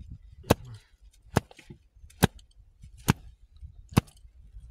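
A folded cloth slapped down again and again on a sand-baked flatbread, knocking the sand off its crust: five sharp slaps, a little under a second apart.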